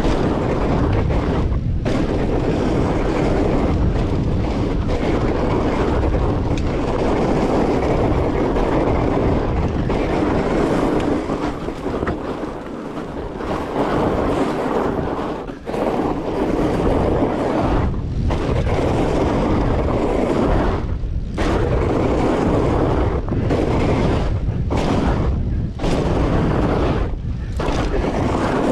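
Wind buffeting the microphone of a camera riding along on a fat bike, a loud, steady rumble with the rolling noise of the bike mixed in. It has brief dips every few seconds, most often near the end.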